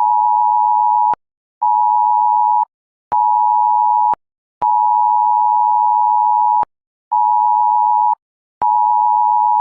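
Phone earthquake-alert tone: a steady two-note electronic alarm near 1 kHz, sounding in a long-short-short cadence. It goes a two-second tone, then two one-second tones, with half-second gaps, and the cycle runs twice, warning of strong shaking from an imminent quake.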